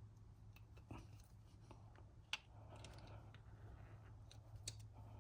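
Faint metal-on-metal clicks and scrapes of a thin pick working at the O-ring in the top of a 6.0 Power Stroke diesel fuel injector, with one sharper click about two seconds in, over a low steady hum.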